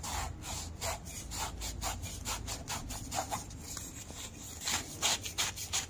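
A rag rubbing over a freshly cut metal fork preload-spacer tube in a quick series of short wiping strokes, about three a second. The tube is being cleaned of cutting shavings.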